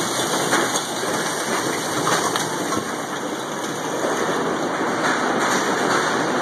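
Hailstorm: hail and heavy rain pelting down in a steady, dense hiss.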